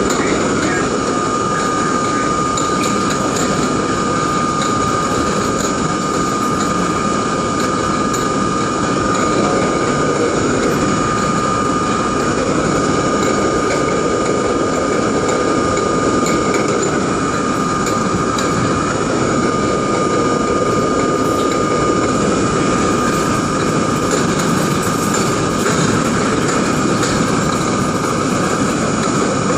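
R32 New York City subway train running at a steady speed, heard from inside the front car: a continuous rumble of wheels on track with a constant high whine over it.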